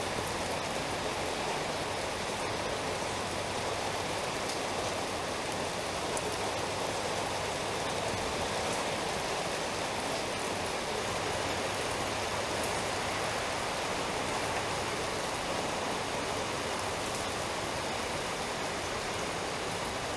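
Steady rain falling, an even hiss with a few faint scattered drips.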